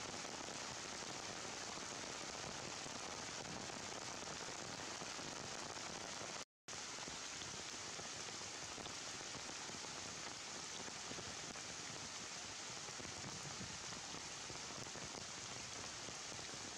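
Steady rain falling, an even hiss with no breaks in its pattern. The sound cuts out completely for a split second about six and a half seconds in.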